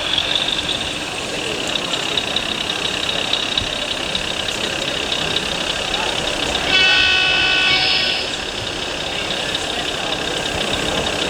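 A model truck's sound-module horn blows one note for about a second and a half, a little past the middle, over a steady background hubbub of voices.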